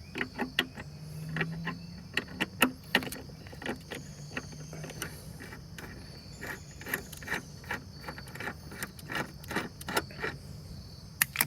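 Ratchet with an extension and 10 mm socket loosening a hand-tight air filter box bolt: irregular metallic clicking and clinking, a few clicks a second.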